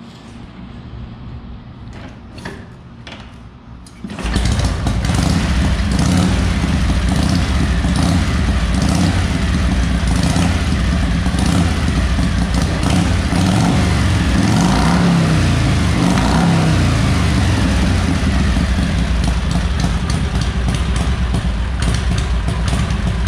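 1948 Harley-Davidson Pan-Shovel V-twin engine starting about four seconds in, after a few knocks, then running loud and steady. It is revved up and down a couple of times near the middle before settling back to idle.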